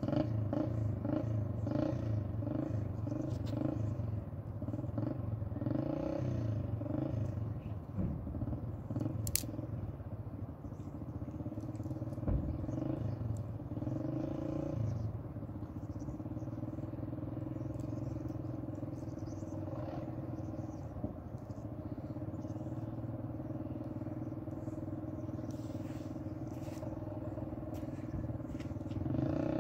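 An engine running steadily at an even pitch, uneven and pulsing for the first few seconds and then smooth, with one sharp click about nine seconds in.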